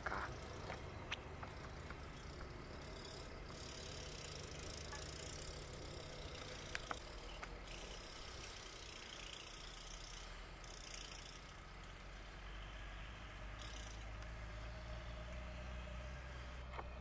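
Terra-Gator 8103 lime spreader running while spreading lime: a faint, steady low engine drone, with a couple of brief clicks.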